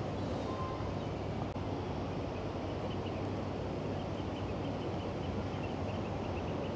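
Steady low engine hum mixed with wind noise, with faint, quick high chirps repeating from about four seconds in.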